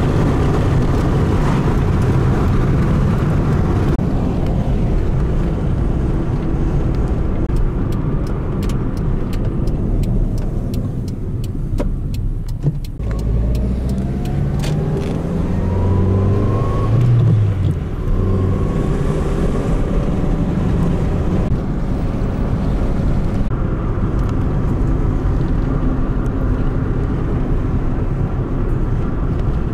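A car in motion heard from inside the cabin: steady road and engine noise. Around the middle it eases off briefly, then the engine note rises twice as the car picks up speed again.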